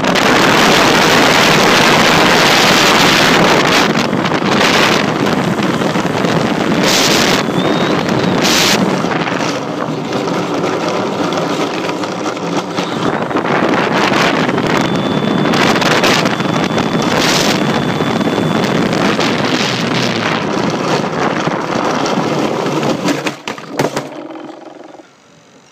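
RC model Cessna under power, its motor and spinning propeller heard from a phone on the nose as a loud, even rushing noise, mostly propeller wash buffeting the microphone. The noise stops abruptly near the end as the model noses over onto its back.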